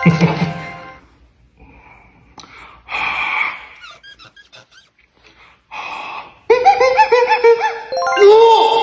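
Squeaky sound effects made by mouth, beatbox-style. Short scattered chirps and breathy bursts give way, after about six seconds, to a loud run of repeated rising-and-falling squeaks.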